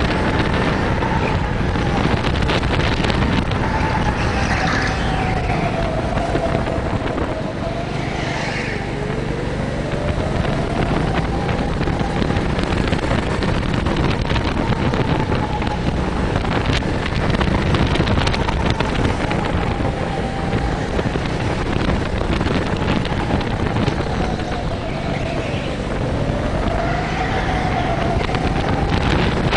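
Go-kart motor running hard on a lap, heard from the driver's seat. Its pitch drops twice, about a third of the way in and again near the end, as the kart slows, then climbs back as it picks up speed, over steady rumble and wind noise on the camera.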